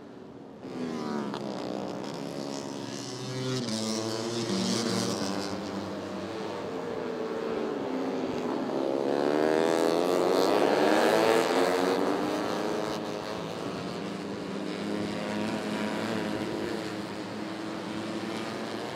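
Tuned 150 cc four-stroke fuel-injected underbone race motorcycles running hard around the circuit, engine pitch rising and falling as they accelerate and brake through the corners. The sound swells to its loudest in the middle as a bike passes close by.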